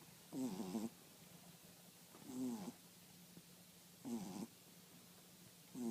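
French bulldog snoring in its sleep: short snores at an even pace of about one every two seconds, three full ones and a fourth starting at the very end.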